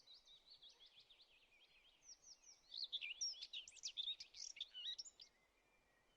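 Faint songbird chirping: a quick run of varied high chirps that grows louder about halfway through and cuts off suddenly near the end.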